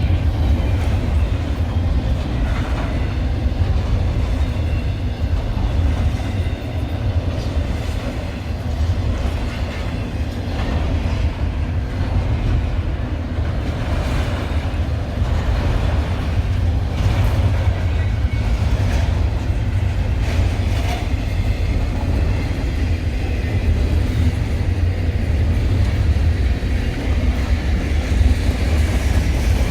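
Freight train rolling past at steady speed: a continuous heavy low rumble from the cars on the rails, with some clacking of wheels over the track joints in the middle stretch.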